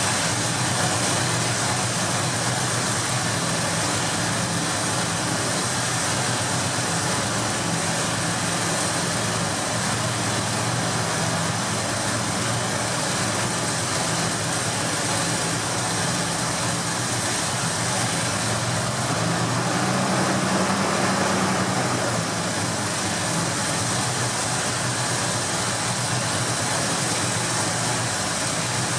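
Ford 351M V8 idling after a carburettor rebuild, with a slight surge: about two-thirds of the way through, the idle speed rises for a few seconds and then settles back to a steady idle.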